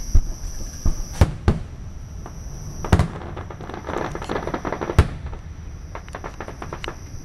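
Aerial firework shells bursting with sharp booms, several in the first second and a half and more about three and five seconds in. A dense crackle from glittering stars fills the middle, and a run of small cracks comes near the end. Crickets chirp steadily underneath.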